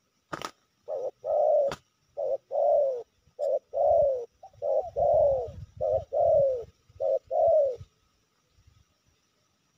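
Spotted dove cooing: a two-part call, a short note followed by a longer note that rises and falls, repeated six times over about seven seconds. Two sharp clicks sound before the cooing starts.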